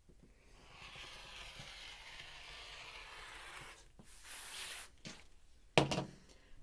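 Quilting fabric being cut in one long stroke: a steady rasp lasting about three and a half seconds, then a brief higher hiss. Near the end comes a single sharp knock, the loudest sound.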